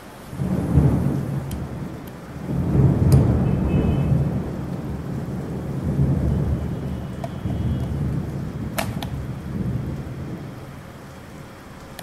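A loud low rumble that swells and fades for about ten seconds, with a few sharp plastic clicks, the clearest near the end, as a peephole video doorbell's battery unit and screen are handled and fitted together.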